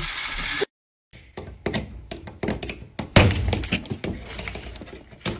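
Handling knocks and thuds against a drywall wall as a hand reaches through a broken hole in it, with the loudest thump about three seconds in. There is a moment of dead silence just under a second in.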